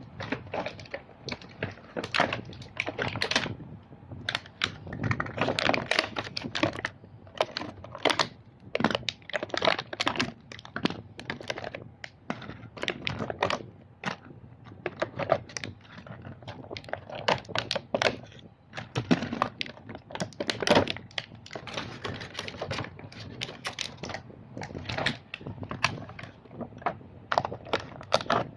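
Small plastic toy trucks being handled, clicking and clacking against each other and a hard surface: irregular knocks, several a second, with no steady rhythm.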